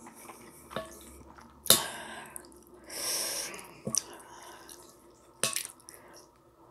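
Wooden spoon stirring soupy ramen in a glass bowl: wet sloshing of broth and noodles, with a few sharp knocks of the spoon against the glass, the loudest near two seconds in. A short hiss comes around the middle.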